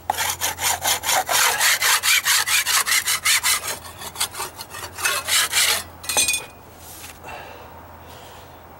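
Stiff steel hand scraper dragged back and forth over a weathered wooden stair tread, scraping off loose paint and rough wood in quick even strokes, about three to four a second. The scraping stops about six seconds in with a short clatter as the tool is set down on the wood.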